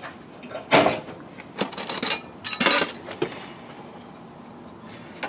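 Hidden gutter hangers being clipped into a length of aluminum gutter: a run of sharp metallic clanks and clicks over the first three seconds or so, then quieter handling.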